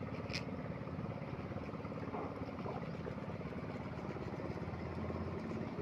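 Suzuki Multicab's small engine idling steadily.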